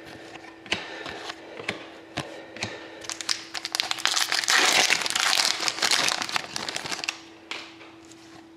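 Foil trading-card pack wrapper crinkling as it is torn open and pulled off, loud for about four seconds in the middle. Before and after it, light clicks of cardboard cards being flicked through by hand.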